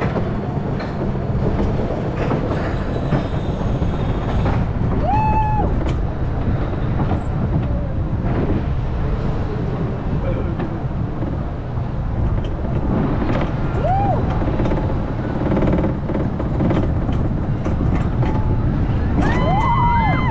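Arrow mine train roller coaster running along its steel track, its wheels giving a steady, loud rumble, heard from the front car. A few brief high-pitched squeals rise and fall over it, about five seconds in, near the middle and again near the end.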